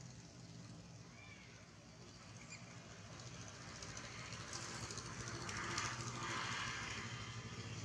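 Low steady hum of a distant motor, slowly growing louder, with a hiss swelling in over the last few seconds.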